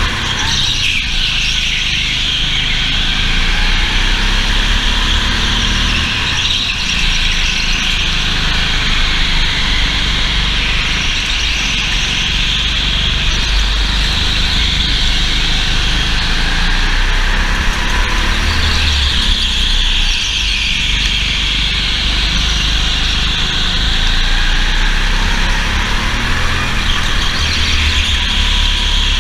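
Go-kart at racing speed heard from onboard: a high whine that swells and fades every few seconds through the corners, over a heavy steady rumble of vibration.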